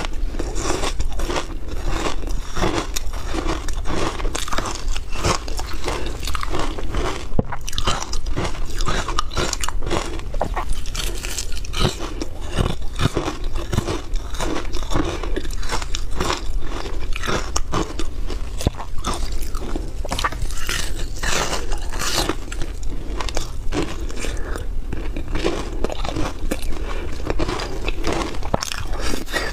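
Close-miked crunching of frozen flavoured ice being bitten and chewed: a dense, continuous run of cracks and crunches as the hard ice breaks between the teeth.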